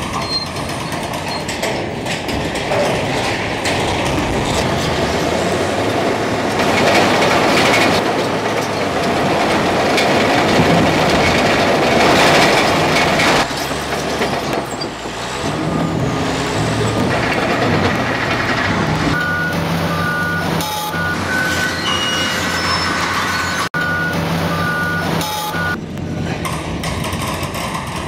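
Heavy demolition machinery running loudly with a dense, noisy rumble. From about two-thirds of the way through, back-up alarms beep over it again and again.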